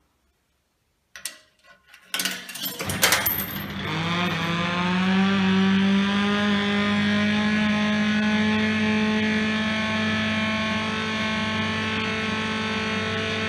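A coin drops into an RG Mitchell motorcycle kiddie ride with a few clicks, then the ride starts with a burst of clunks. Its running sound follows as a loud steady hum that rises in pitch over a couple of seconds and then holds steady.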